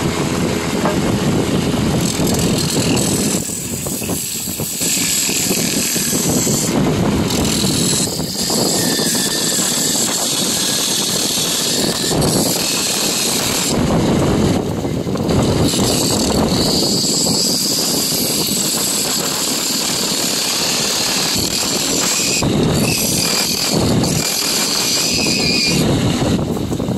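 Wood lathe spinning a wooden vessel while a long-handled hollowing tool cuts into its inside: a continuous scraping, shaving noise over the running lathe. The noise eases off briefly several times as the cut pauses.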